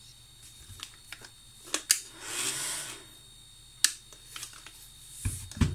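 A few sharp clicks as the power button on an NSS 150W portable power station is pressed and the unit does not come back on: it has died. A brief rush of noise sounds between the clicks, and two dull knocks come near the end as the unit is handled.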